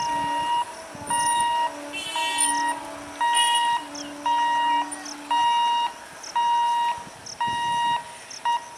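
Electronic warning alarm beeping at about one beep a second, each beep a steady high tone lasting about half a second. A lower tone pulses underneath through the first half and then stops.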